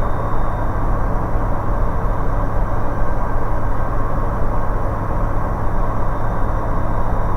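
Steady engine and propeller drone of a Bristell light aircraft heard inside the cockpit: a constant low hum under an even rushing noise, not changing.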